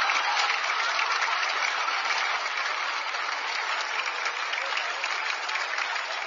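Audience applauding in a dense, even wash of clapping, loudest at first and easing slightly.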